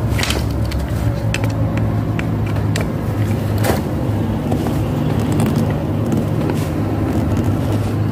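Scattered small clicks and knocks of plastic and metal as hands handle an industrial sewing machine's opened control box and its connectors, over a steady low hum.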